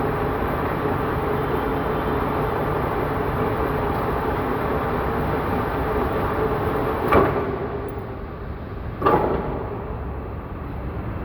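Lathe running with a steady mechanical hum. About seven seconds in there is a sharp metallic clank and the running noise gets quieter, and a second clank follows about two seconds later.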